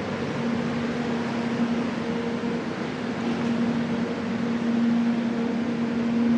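Steady hum of a stationary Arlanda Express electric train, a low tone held over a constant wash of machinery and ventilation noise.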